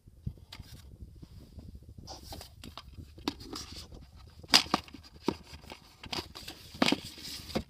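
Handling noise: irregular rustling and light clicks and knocks as a book or disc case is handled and set back on a shelf while the tablet is moved about. The sharpest knocks come about four and a half and seven seconds in.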